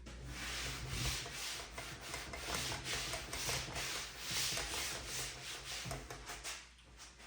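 Quick back-and-forth rubbing strokes by hand on a wooden drawer box, easing off near the end.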